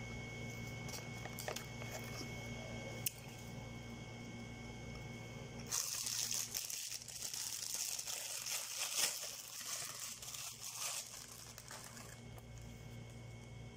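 Thin plastic crinkling and rustling for about five seconds, starting about six seconds in, as gloved hands handle food packaging. Under it runs a steady low hum with a few light clicks.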